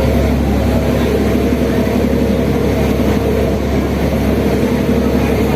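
Boat engine running steadily on the move, a constant low drone with a wash of noise over it.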